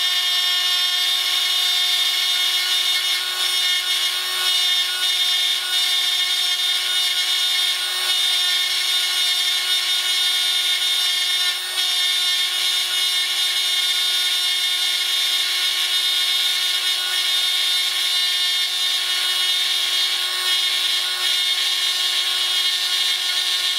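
Proxxon mains-powered rotary drill in a pantograph engraver running at steady speed, its D-cutter milling nickel silver sheet: a constant high-pitched whine.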